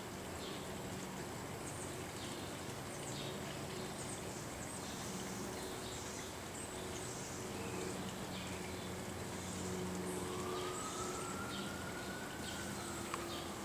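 Faint outdoor garden ambience: a steady low hum with short, high chirps or ticks scattered through it. A long tone rises and then levels off from about ten seconds in.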